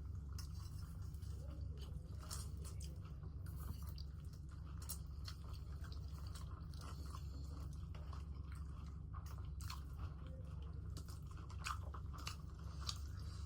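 Close-miked chewing of food, with many scattered short crisp clicks and crunches of biting, over a steady low hum.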